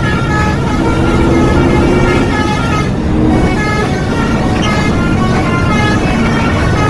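Telolet basuri multi-tone bus horn playing a quick tune of short notes that step up and down in pitch and repeat, over a steady low rumble.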